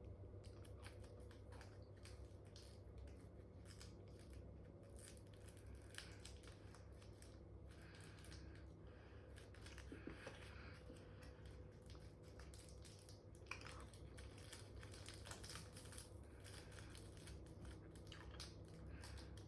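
Near silence: faint room tone with a steady low hum and scattered faint clicks.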